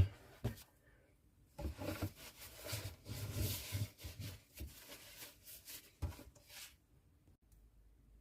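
Irregular rustling and handling noises with a few light knocks, then it goes quiet near the end.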